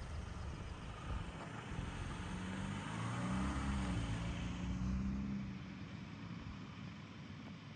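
A car passing by, its engine and tyre noise building to loudest about three to five seconds in, then fading away.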